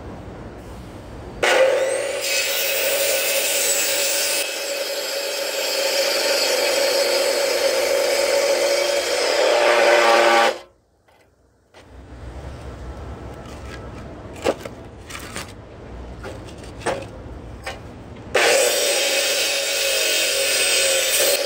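Electric miter saw with a toothed blade running and cutting through a thick timber block for about nine seconds, then cutting off suddenly. A few knocks and clicks follow, and the saw runs and cuts again near the end.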